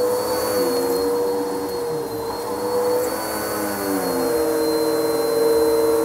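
Bissell PowerForce upright vacuum cleaner running on a shag rug, with a steady motor hum and a thin high whine above it. The motor note dips and recovers twice as the vacuum is pushed through the pile.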